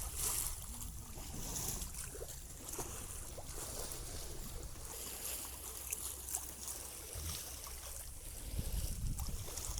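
Strong wind buffeting the microphone aboard a sailboat under sail, over a steady hiss of water along the hull; the wind rumble swells near the end.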